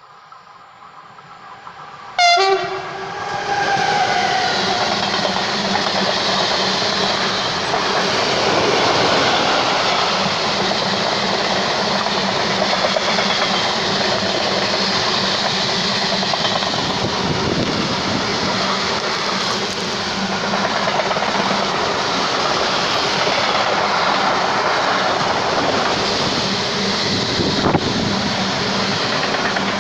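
DB Cargo freight train passing close by. A short, loud horn blast sounds about two seconds in as it arrives, then comes the steady noise of the wagons rolling past on the rails.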